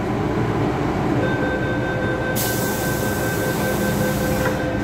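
Inside an MTR Island Line train carriage: a steady low rumble, with a thin steady whine that starts about a second in and a loud high hiss that starts about two seconds in and stops about two seconds later.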